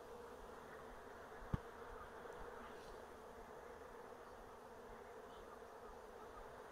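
A honeybee swarm humming steadily and faintly as the bees crawl from a sheet into a cardboard box. There is one short, sharp knock about a second and a half in.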